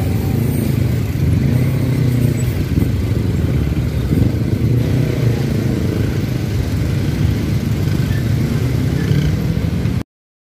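Babaranjang coal train rumbling steadily along the track, a loud low rumble that cuts off abruptly about ten seconds in.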